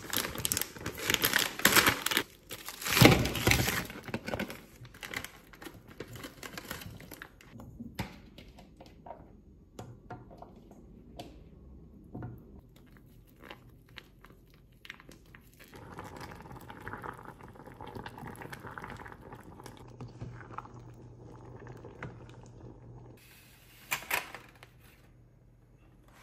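Plastic meal-kit bag being torn open and crinkled by hand, a loud dense crackling for the first few seconds, loudest about three seconds in. Smaller rustles and clicks of the packets being handled follow, with a faint steady hum later on.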